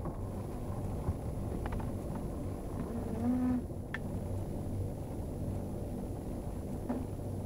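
Sleeping cat snoring: one short, low, pitched snore about three seconds in and a fainter one near the end, over a steady low hum.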